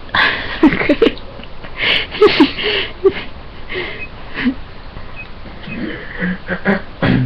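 Short, breathy vocal sounds and soft snuffles in irregular bursts, the sounds of a dog and its owner as the dog's belly and paws are tickled.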